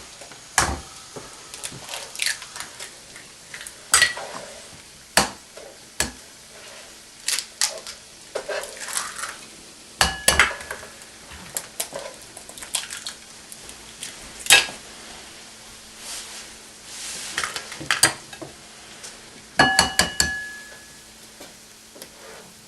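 Dishes and kitchen utensils clinking and knocking in irregular sharp taps, a few ringing out like a struck bowl, one near the end. Frying vegetables sizzle faintly underneath.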